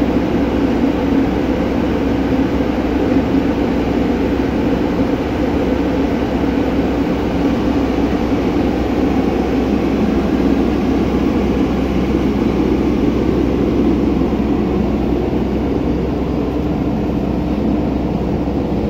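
Heavy-equipment diesel engine running steadily at an even speed, with a low constant drone.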